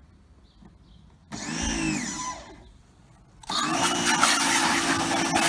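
Titan electric pressure washer's motor starting up briefly, winding up and down in pitch, then stopping. About three and a half seconds in, it starts again and runs steadily under the loud hiss of the water jet spraying from the lance.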